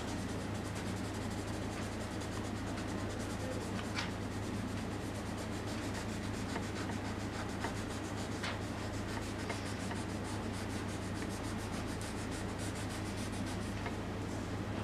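Hand rubbing over a graphite pencil drawing on paper, over a steady low hum, with a couple of faint ticks.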